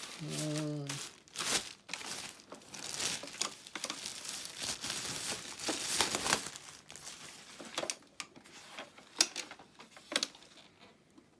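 Plastic packaging crinkling and rustling in irregular handfuls as a robot vacuum cleaner is unwrapped, with a short voiced sound at the very start.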